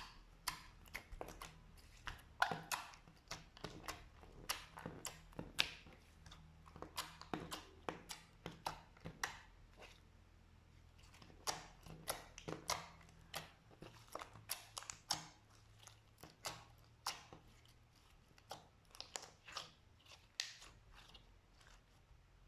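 Slime being squished and pressed by hand, giving irregular sticky pops and crackles, several a second, with a short lull partway through.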